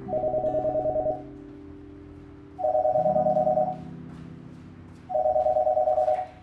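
Landline telephone ringing: three electronic trilling rings, each about a second long, about a second and a half apart.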